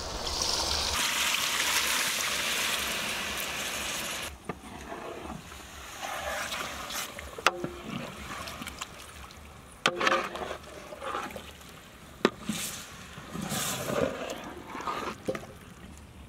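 Tamarind juice poured from a steel bowl into a large metal pot of fish curry, a steady pour lasting about four seconds. After that, a ladle stirs the curry in the pot, with a few sharp clinks and scrapes against the metal.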